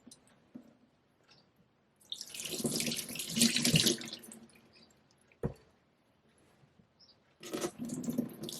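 Tap water running in two spells, rinsing the honing slurry off a straight razor, with a single sharp knock in between.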